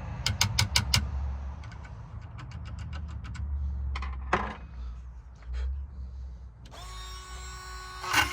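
Sharp metallic clicks and taps from handling the lock and drill, then a power drill fitted with a burr bit spinning freely with a steady whine for about a second and a half near the end, just before it bites into the lock.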